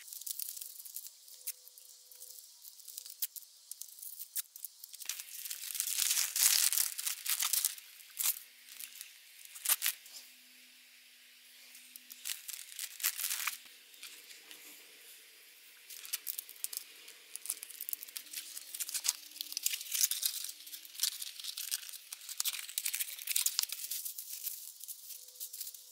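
Plastic packaging handled by hand: bubble wrap and a plastic mailer bag crinkling and rustling, with sharp crackles and tearing-like rips. Near the end a small kraft cardboard box is folded.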